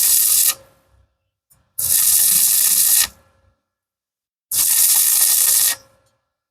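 Welding arc hissing in short bursts of a little over a second each, starting and stopping abruptly with silent gaps between: three bursts, the first already under way.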